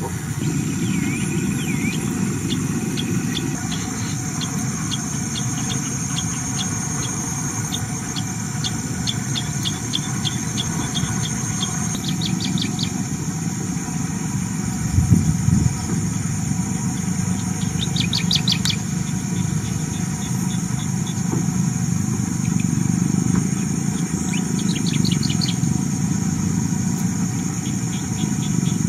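Forest ambience: a steady high insect drone and runs of short, rapidly repeated bird chirps over a constant low rumble, with a brief louder low thump about halfway through.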